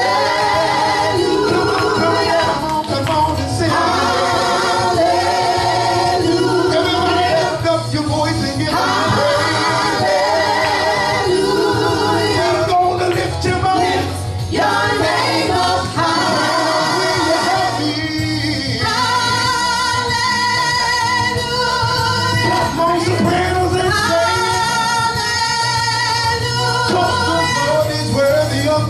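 Gospel praise team singing a worship song over instrumental accompaniment, several voices together, holding long wavering notes through the second half.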